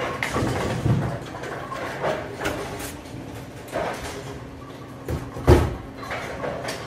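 Storm High Road Pearl bowling ball rolling down the lane, then a sharp crash into the pins about five and a half seconds in.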